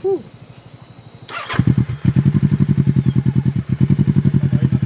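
Crickets chirp steadily at first. About a second and a half in, a motorcycle engine starts and settles into an even, rapid throbbing idle.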